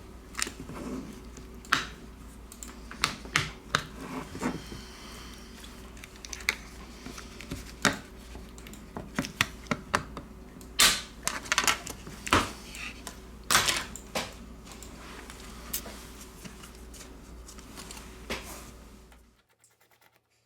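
Metal opening tool working around the plastic housing of a Xiaomi Redmi 7A: irregular sharp clicks and taps, some louder than others, over a steady low hum. The sound drops out about a second before the end.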